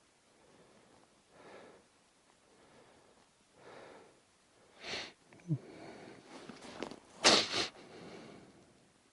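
A man breathing and sniffing at the microphone, faint puffs about every two seconds, then a few short rustles and clicks of handling, the loudest a sharp noisy sniff or snort a little past seven seconds in.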